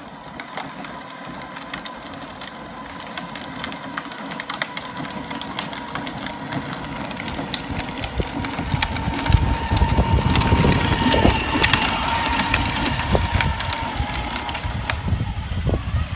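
Peg Perego battery-powered ride-on toy car driving over rough ground: a steady whine from its electric drive with its plastic wheels crackling and crunching underneath. It grows louder, with a heavier rumble, from about eight seconds in.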